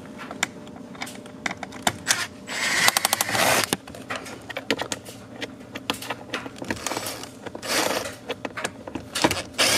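DeWalt cordless impact driver backing out Phillips screws from a plastic interior trim panel: short runs of the tool, with a rapid hammering rattle about three seconds in and more short bursts near the end, among clicks and knocks of handling.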